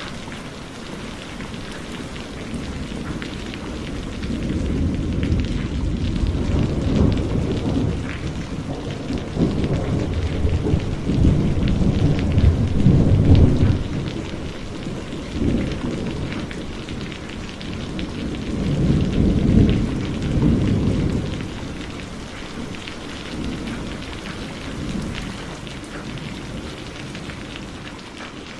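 Heavy steady rain with thunder rumbling in long, low swells that build a few seconds in, peak about halfway through and again a little later, then die away near the end, leaving the rain alone.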